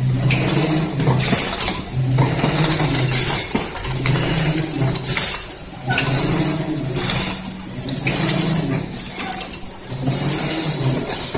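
Automatic cartoning machine running: continuous mechanical clatter of its conveyor and cartoning mechanism, with a low hum that comes and goes about once a second in a repeating machine cycle.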